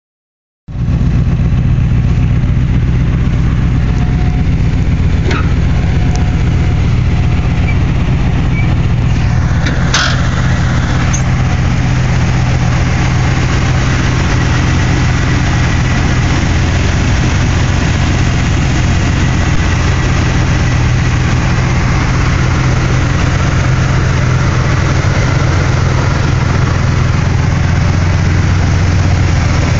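Carbureted Chevrolet V8 idling steadily, with a couple of faint clicks about five and ten seconds in.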